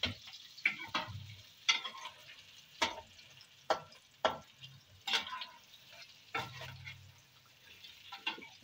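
Chicken pieces frying in hot oil with a steady sizzle, while a metal slotted spoon and a second spoon clink and scrape against the metal wok, about once a second, as the finished golden pieces are lifted out.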